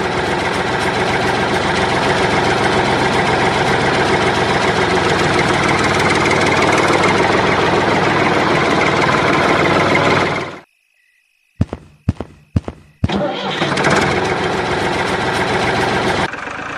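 Diesel tractor engine running steadily. It cuts off abruptly about ten and a half seconds in, then after a few sharp clicks it runs again from about thirteen seconds in.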